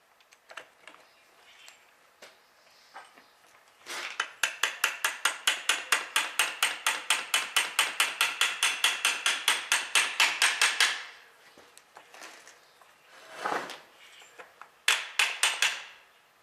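Metal-on-metal hammer tapping on the tractor clutch's shift collar to seat it on its tight-fitting shaft: a fast, even run of light blows at about six a second lasting some seven seconds, then a short burst of a few more taps near the end.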